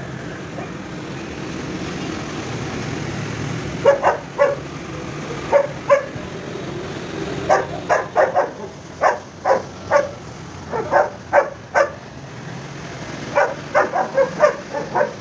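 A dog barking over steady street traffic noise: short barks in quick clusters of two to four, starting about four seconds in.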